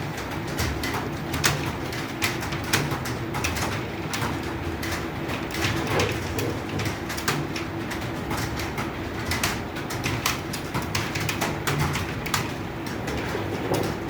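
Typing on an Acer computer keyboard: keys clicking in quick, irregular succession, over a low steady hum.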